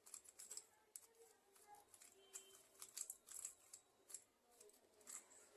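Faint, irregular plastic clicks and rattles of a 3x3 speed cube being turned by hand, as it is put through a scramble.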